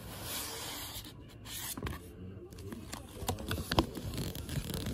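A paper instruction sheet rustling and crinkling as it is pulled off a roll of peel-and-stick shelf liner and handled. Sharper crackles come in the second half.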